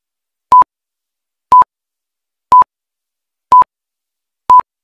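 Countdown timer beeping once a second: five short, identical beeps at one steady pitch with silence between, each beep marking one second of the countdown.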